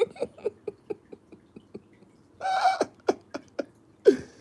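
A man laughing: a run of short, quick laughs at about four a second that fade away, then a breathy burst and a few more laughs near the end.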